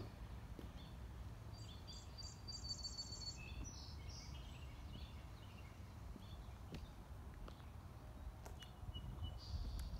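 Outdoor ambience: songbirds chirping, with a quick run of high notes about two seconds in and a few more near the end, over a low steady background rumble.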